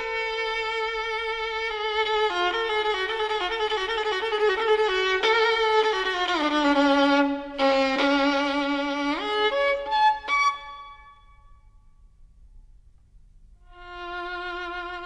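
Background music: a solo violin melody played with vibrato, with a few sliding notes. It fades out about ten seconds in and starts again near the end.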